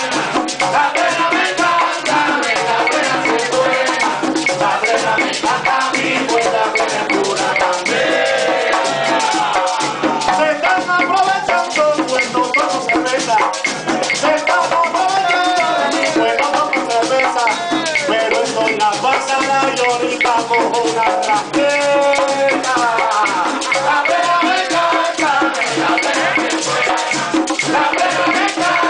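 Live Puerto Rican plena: several panderetas (hand-struck frame drums) beating a driving rhythm under group singing.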